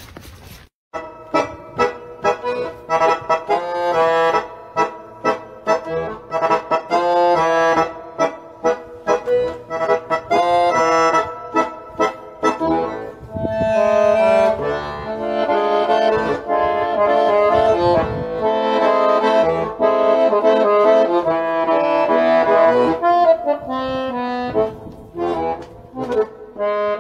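Accordion music: a quick tune of short, repeated notes, with longer held chords through the middle stretch.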